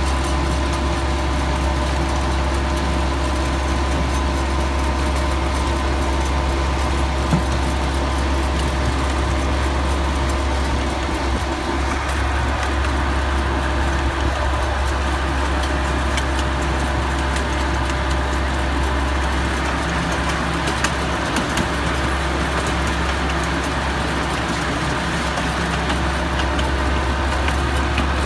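A miniature park train running along its track: a steady engine drone with a strong low hum.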